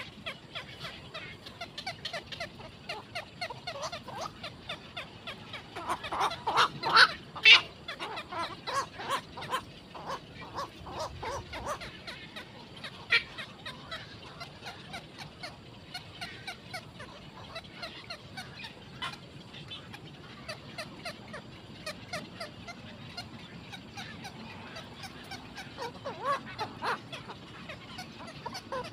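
Black-crowned night herons at the nest calling: a steady chatter of short, quick calls, with a louder flurry about six to eight seconds in and another near the end.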